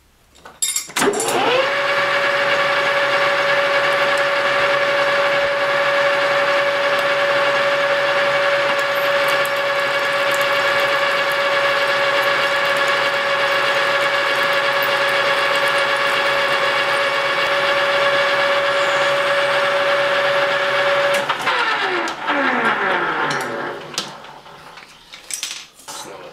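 Metal lathe spinning up with a rising whine about a second in, then running steadily with a high, even gear whine while a twist drill in the tailstock bores into the center of the spinning workpiece. Near the end the lathe is switched off and winds down, its whine falling in pitch.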